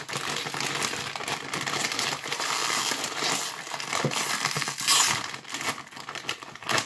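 A foil-lined chip bag crinkling and crackling as it is handled and opened by hand, with a louder burst of crinkling about five seconds in.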